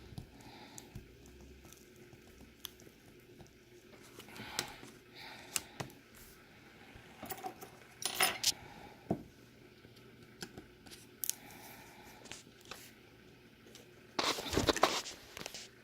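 Scattered small clicks and taps of hard plastic and metal parts handled during a tablet battery swap, with a denser rattling clatter near the end.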